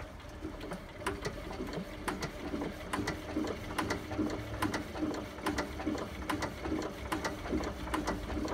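Lister LR1 single-cylinder diesel engine running slowly after a cold-weather start, with a regular mechanical knock of about two to three beats a second over a low hum.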